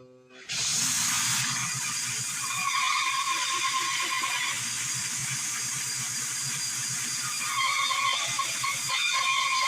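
Power saw cutting wood: it starts abruptly and runs steadily, its whine rising and falling as the blade bites into the board.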